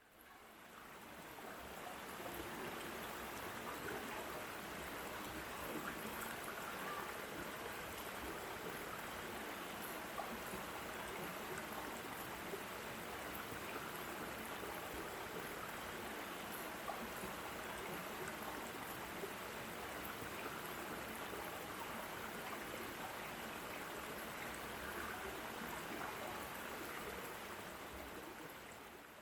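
Water of a rocky waterfall stream running steadily, an even rushing sound that fades in at the start and fades out near the end.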